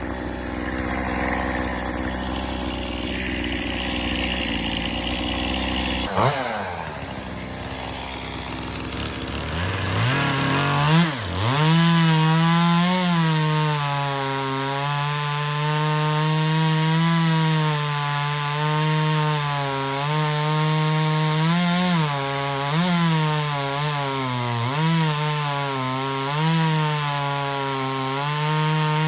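Echo CS-2511T top-handle two-stroke chainsaw revving up about ten seconds in, then running at high speed while cutting wood, its pitch dipping several times as the chain bogs in the cut. Before it comes up to speed there is a few seconds of indistinct noise.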